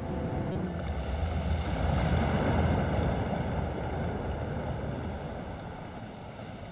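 Stormy sea: wind and surf making a rushing noise that swells to its loudest about two to three seconds in, then slowly dies away.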